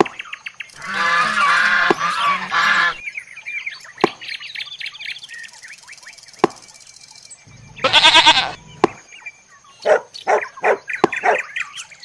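Goose honking in a quick run of short calls near the end, after other animal calls: a longer pulsing call about a second in and a loud call past the middle.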